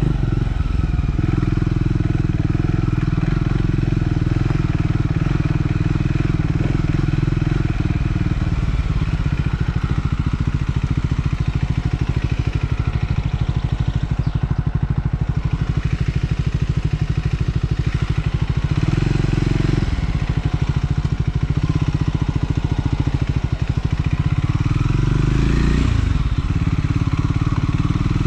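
Triumph Scrambler 400 X's single-cylinder engine running while riding, its pitch changing several times as engine speed rises and falls, with a brief rising then falling sweep near the end.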